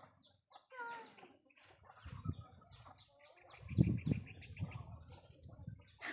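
Chickens clucking, with a run of quick, even clucks a couple of seconds in, and a few low thuds, loudest about four seconds in.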